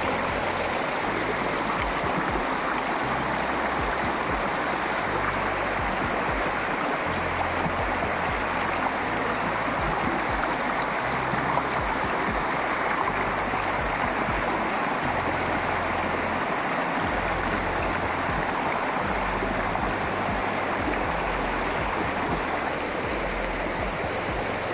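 Canal water running steadily in a continuous rushing flow.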